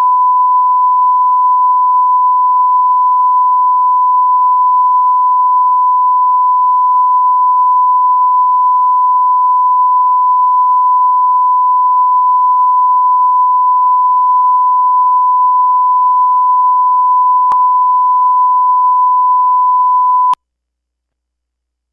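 Steady 1 kHz line-up reference tone played with television colour bars. It holds one unchanging pitch and cuts off abruptly near the end.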